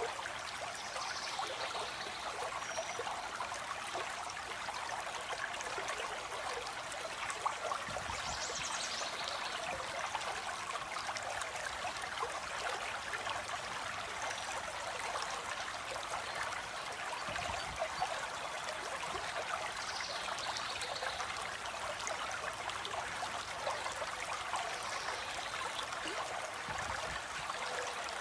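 Water flowing steadily in a stream, an even rushing and trickling, with a few faint high bird calls every several seconds.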